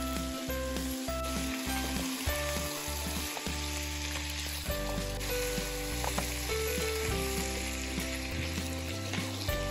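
Goat meat pieces sizzling as they fry in hot oil in a pan, with a spatula stirring them at the start, over light background music.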